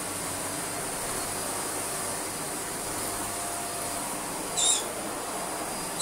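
Shark DuoClean vacuum cleaner running steadily on a rug: an even motor rush with a thin, steady high whine. A pet bird chirps briefly about three quarters of the way through.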